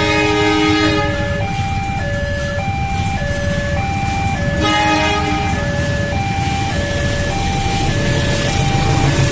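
Railway level-crossing warning alarm sounding a repeating two-tone chime, alternating high and low about every half second. A train horn blows a chord at the start and again about halfway through, over the steady low rumble of idling motorcycles waiting at the barrier.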